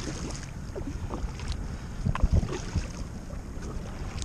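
Kayak paddle strokes, the blade dipping and splashing in calm water with a few sharp splashes and drips, over a steady low rumble of wind on the microphone.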